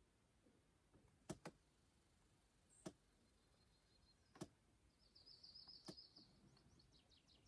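Near silence on a still lake, broken by five faint sharp clicks spread over the first six seconds. A small bird trills rapidly in a high voice for about two seconds near the end.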